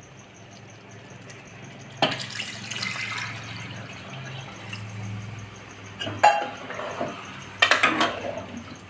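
Water being poured into a pan of chicken cooking in masala, the pouring starting about two seconds in, followed by a few clinks and clatters of a vessel or spoon against the pan.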